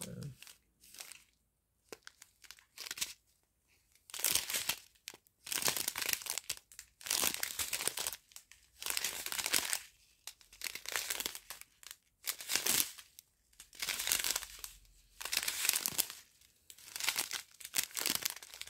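Crinkling of a strip of sealed plastic sachets of round diamond painting drills being handled and flexed, coming in repeated irregular bursts after a few faint ticks at the start.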